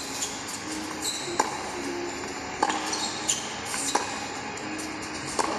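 Tennis rally played through a TV speaker: a series of sharp racquet-on-ball hits, about one every second or so, over steady background noise.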